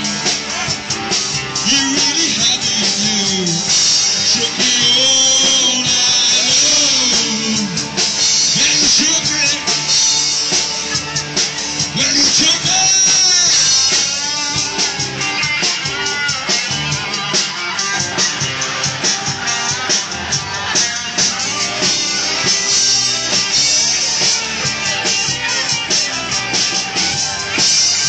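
Live rock band playing, with electric guitar and drum kit.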